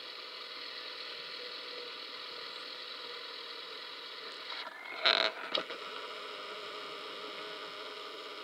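Steady mechanical hum, like a motor running, with a short loud clatter about five seconds in and a smaller one just after.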